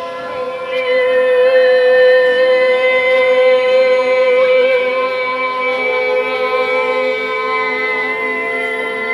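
Improvising choir holding long, steady notes together in a dense cluster of pitches. More voices come in about a second in, and a lower note joins partway through.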